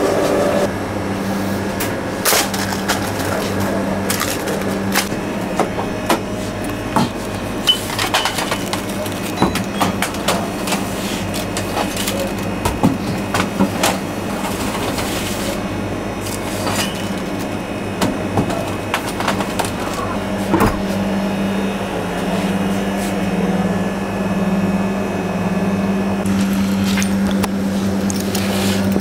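Bakery work sounds: a steady electric machine hum under scattered clatter and knocks of metal trays and hand tools being handled. The hum grows stronger about two-thirds of the way through.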